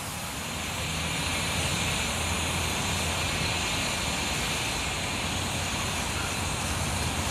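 Steady hiss of escaping steam from a 15-inch-gauge 0-4-2T tank locomotive standing with steam blowing out low at its front, over a steady low rumble.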